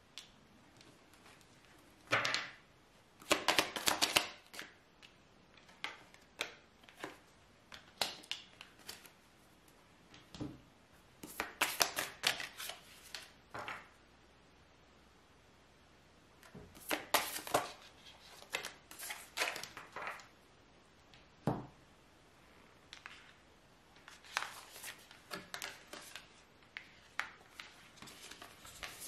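A deck of fortune-telling cards being shuffled and handled, in several bursts of rapid flicking and rustling with quiet pauses between them.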